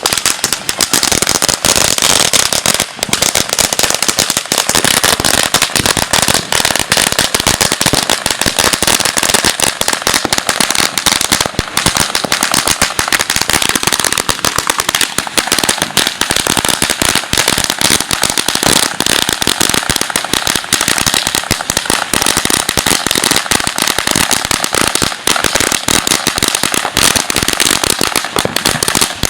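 A string of firecrackers going off in a loud, rapid, continuous crackle of pops that does not let up.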